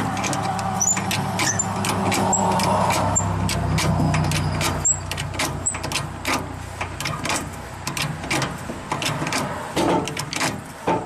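The cab-tilt hydraulic pump of an LMTV military truck being worked to raise the cab: a steady low hum for the first few seconds, with a run of irregular mechanical clicks and knocks throughout.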